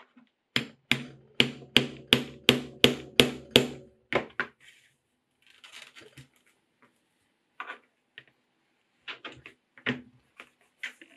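Steel hammer striking a small metal leather-working tool into leather on a cutting mat: nine sharp, ringing strikes at about three a second, then two lighter taps. Afterwards come faint rustles and clicks as the leather and tools are handled.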